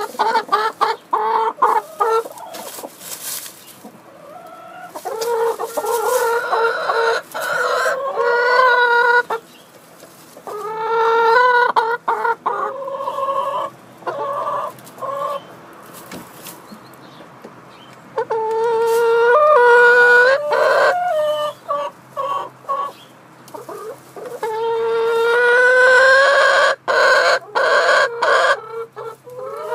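Several hens clucking and cackling close by, in bouts of loud calls, several of them long and drawn out with a rising pitch, with short quieter gaps between bouts.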